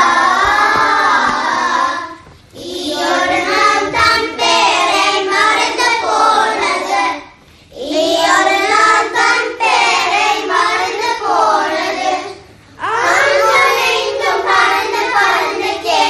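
A group of young schoolchildren singing a Tamil song together, phrase by phrase, with short breaks between lines about every five seconds.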